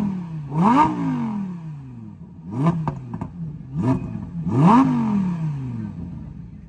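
Lamborghini engine revved in about five quick blips, each a sharp rise in pitch followed by a slower fall, the strongest about a second in and near five seconds. A few sharp cracks come around the middle.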